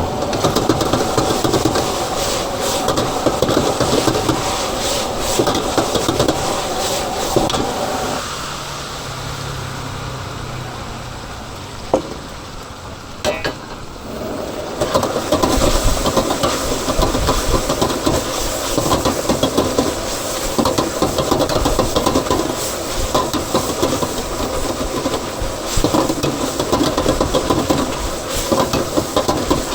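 Chicken stir-frying in a wok: steady sizzling with the clatter and scrape of metal tools against the pan. It drops quieter for several seconds in the middle, with one sharp knock, then picks up again.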